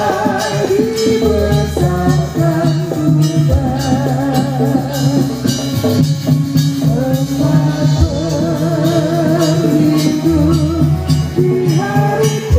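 Live music played over a PA: a singing voice with wavering, ornamented melody lines over steady hand percussion and sustained low bass notes, the accompaniment for a Sufi whirling dance.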